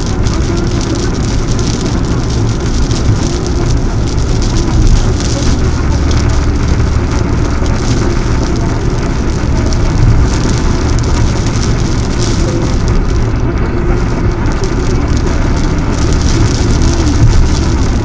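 Typhoon rain pattering on a car's windshield and roof, heard from inside the cabin over a steady low road and engine drone while driving at expressway speed. The windshield wipers sweep now and then.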